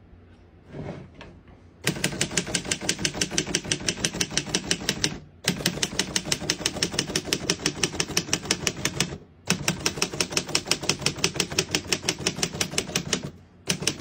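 A 1940 Underwood Universal portable manual typewriter being typed on fast, its keys and type bars clacking in a rapid steady clatter that starts about two seconds in. The typing comes in three runs with brief pauses about five and nine seconds in.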